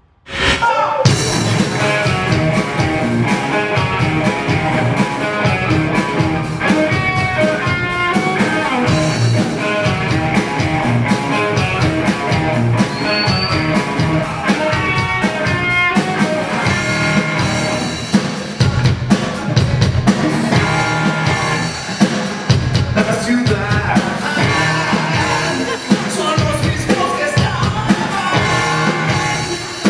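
Rock band playing: electric guitars over a drum kit, coming in suddenly about half a second in.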